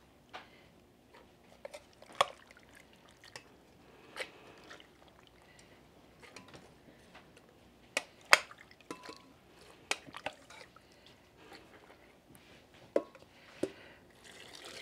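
Spoon scraping and knocking in an enamel pot as cooked ancho chiles are spooned into a blender jar: irregular wet plops and sharp clicks, with the loudest knocks a few seconds apart.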